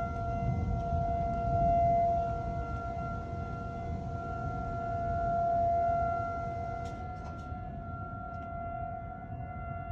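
Outdoor tornado warning siren holding a steady tone that swells and fades in loudness, sounding for a tornado warning, over a low rumbling noise.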